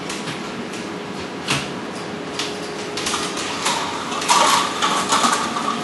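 Steel fish tape and taped-on cables being pulled by hand through a 1-inch conduit: scattered scrapes and clicks that grow busier and louder about halfway through.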